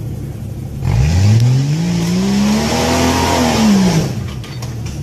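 A 4x4 SUV's engine revving hard as it climbs a steep rock ledge: about a second in the pitch rises for two seconds, then falls away as the throttle comes off, with a loud rushing hiss alongside. A few sharp knocks follow near the end.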